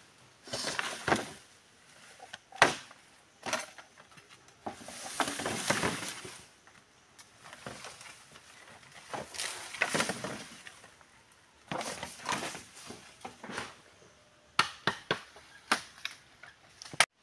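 Hands working through dry bamboo leaves and undergrowth: irregular rustling and crunching, broken by sharp snaps of breaking stems. The loudest snap comes a few seconds in, and a quick run of small cracks comes near the end.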